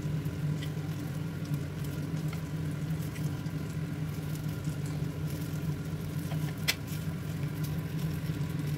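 Apple fritters in a frying pan of oil sizzling lightly over a steady low hum, with one sharp click late on.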